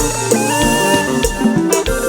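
Live band music, an instrumental passage: a drum kit keeping a steady dance beat under bass and a held melodic line.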